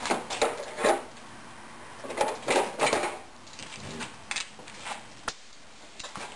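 Metal air tools being handled and swapped: a cluster of clunks and rattles in the first second, another around two to three seconds in, then a few lighter clicks.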